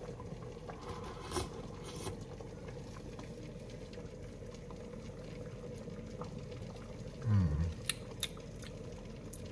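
Soup being tasted from a metal spoon: small mouth and spoon clicks over a quiet kitchen with a steady low hum. About seven seconds in comes a short hummed 'mm' with falling pitch.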